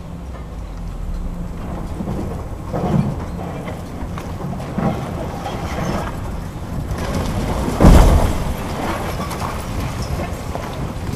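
Demolition excavator's diesel engine running under a steady low rumble while its crusher breaks up a concrete floor slab, with crunching knocks and a loud crash of concrete breaking away about eight seconds in.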